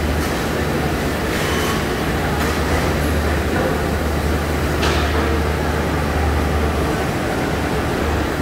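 Steady running noise of a tray-sealing packaging line: a Multivac T600 tray sealer and its plastic modular belt conveyor, with a constant low hum underneath and a couple of faint clicks.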